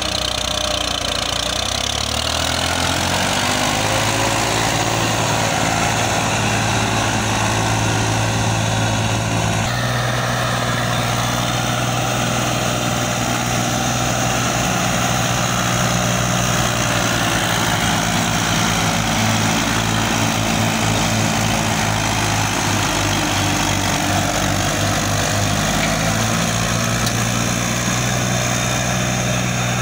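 Diesel tractor engines running hard under heavy load, the engine note rising a few seconds in and then holding steady with small swells, as a tractor strains to pull a soil-loaded trolley out of mud while a front-loader tractor pushes it.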